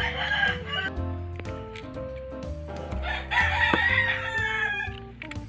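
A rooster crows twice over background music: a short crow ending about a second in, then a longer, louder crow from about three seconds in.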